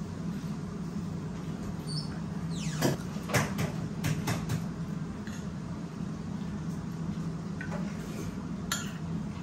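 Cutlery scraping and clinking on plates and bowls at a meal: a cluster of knocks with a downward scrape about three seconds in, and one more knock near the end, over a steady low hum.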